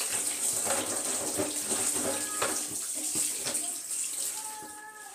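Cold tap water running from a kitchen faucet over hard-boiled eggs in a plastic colander in a stainless steel sink, with a few light knocks as the eggs are turned by hand. The water is cooling the eggs so the shells come off well. The flow eases off near the end as the tap is turned.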